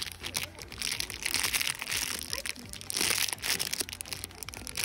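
Crinkling and rustling handling noise, loudest about one and a half and three seconds in, over faint background music.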